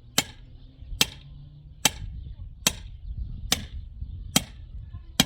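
Repeated sharp striking blows at a steady pace, about one every 0.85 s, seven in all.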